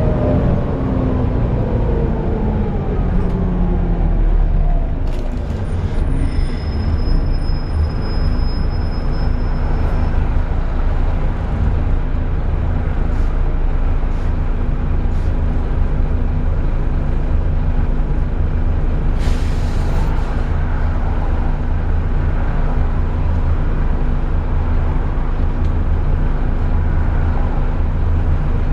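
Volvo B7TL double-decker bus heard from on board. Its engine note falls over the first few seconds as it slows, then settles into a steady drone with the constant whine of its loud 'hoover' cooling fan. About 19 seconds in there is a short hiss of released air.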